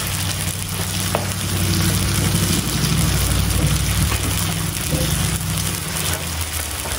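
Meat sizzling and frying on a hot tabletop grill pan, a steady crackling hiss with a low hum underneath.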